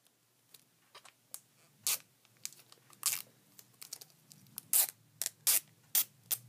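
A sticker being picked and peeled off a plastic Blu-ray case: a run of short, scratchy rips at irregular intervals, the loudest ones in the second half.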